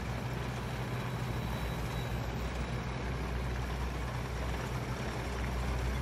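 A steady low hum of a running engine under a faint even hiss.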